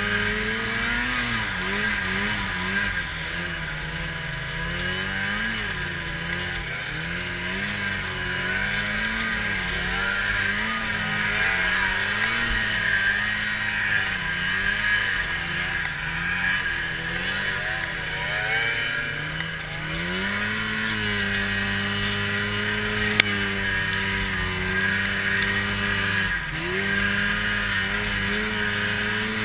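Arctic Cat 700 snowmobile engine running under load through deep powder, its pitch rising and falling with the throttle through the first two-thirds and holding steadier near the end. A hiss of wind and snow runs under it, with one brief click about three-quarters of the way through.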